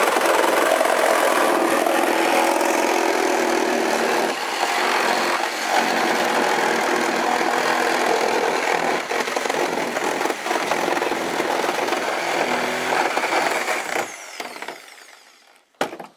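Reciprocating saw cutting through the thin sheet metal of a Volkswagen's roof, running steadily, then fading out and stopping about two seconds before the end.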